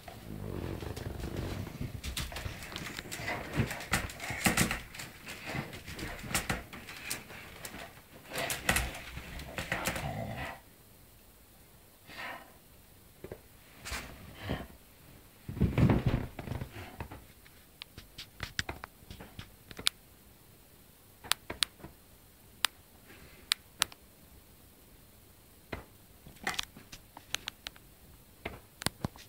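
Bull terrier moving about in a wicker dog basket and mouthing a tennis ball. Rustling and clicking for about the first ten seconds, a louder thump around the middle, then scattered small clicks.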